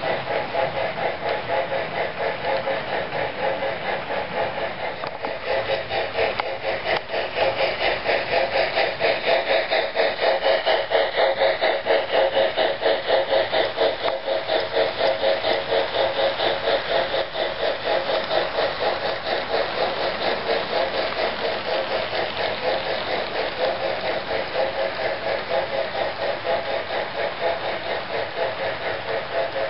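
Sound decoder of an HO-scale Broadway Limited Imports Norfolk and Western class A 2-6-6-4 model steam locomotive playing a fast, even steam-chuffing rhythm through its small speaker, over the running gear and wheels rolling on the track. Loudest from about eight to fourteen seconds in, as the locomotive passes close.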